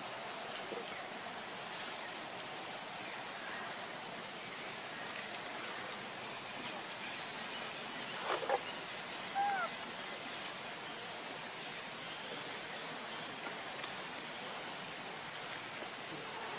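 Forest ambience: a steady high insect drone over an even hiss. About eight seconds in there is a brief rustle, and a second later a short, thin squeak.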